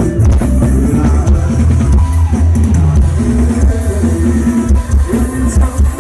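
Loud live music from a rot hae sound truck's speaker system: a band with drum kit and guitar over heavy, tight bass with a steady beat.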